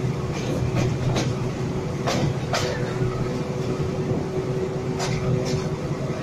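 Passenger train running on its track, heard from aboard the coaches: a steady rumble with sharp wheel clacks over rail joints, in pairs about half a second apart, three times.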